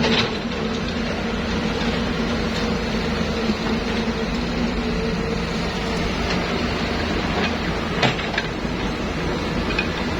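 Excavator engine running steadily, a constant hum with two sharp knocks, one right at the start and one about eight seconds in.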